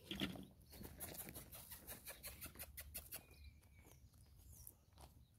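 Faint rustling footsteps on dry grass, a quick run of soft crunches and clicks that thins out after about three seconds. A short bird call sounds in the second half.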